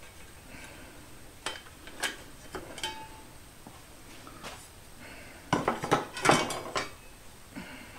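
Steel dado blades and chippers clinking against each other and their plastic case as they are picked out and handled. The clinks come singly at first, then a louder cluster of clanks about two-thirds of the way in.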